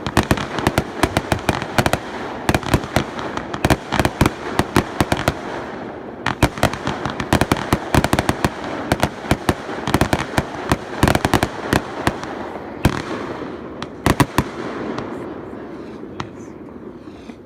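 Fireworks display: a rapid, dense string of cracks and bangs over a continuous crackle, many per second, thinning out near the end.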